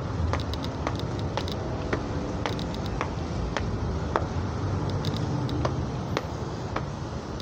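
Footsteps climbing concrete stairs: sharp clicks about twice a second, over a steady low rumble.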